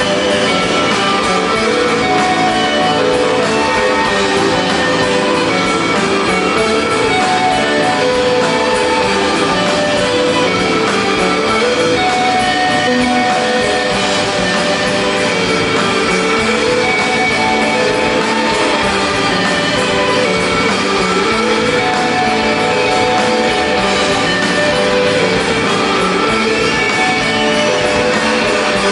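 Live rock band playing loudly: electric guitars, bass guitar and drums in a dense, unbroken wall of sound.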